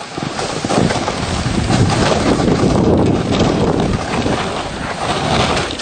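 Wind rushing over the camera microphone, mixed with the rough scrape of snowboards sliding over snow. The rush gets louder about a second in.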